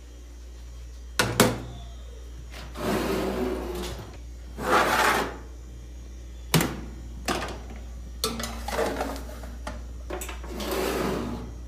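Kitchen things being handled: scattered clicks and knocks and several short scraping or rustling swells over a steady low hum.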